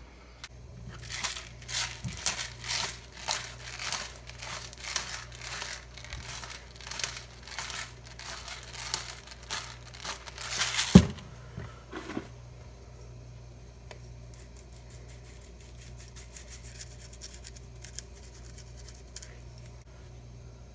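Knife cutting through a steelhead fillet: a quick run of rasping, tearing strokes through skin and flesh, with one sharp knock on the board about eleven seconds in, then lighter strokes.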